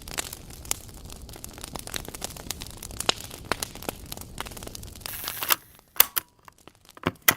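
Dense crackling with many scattered sharp clicks. It ends about five and a half seconds in with a short hiss, followed by near silence broken by a few single clicks.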